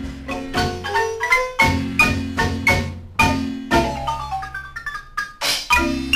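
Guatemalan marimba playing a 1920s dance tune: quick mallet-struck notes ringing over sustained bass notes. There is a brief lull about three and a half seconds in, followed by a rising run of notes.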